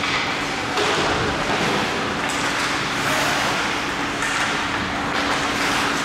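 Ice hockey skates scraping and carving the ice in swells of a second or two, over a faint steady hum in the rink.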